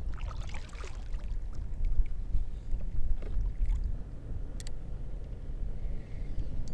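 Wind rumbling on the microphone over water around a kayak, with a few faint clicks.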